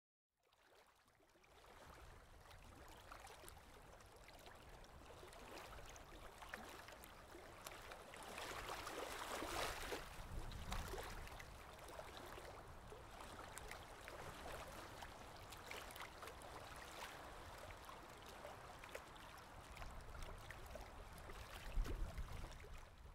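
Faint water sounds: a soft gurgling, lapping wash with scattered small clicks. It fades in at the start, swells about nine seconds in and briefly again near the end.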